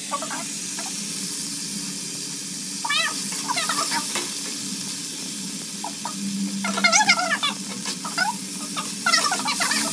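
Chopped vegetables sizzling with a steady hiss in an iron kadhai on a gas burner as a spatula stirs them. Short high-pitched wavering cries cut in about three seconds in, and again, louder, around seven seconds and near the end.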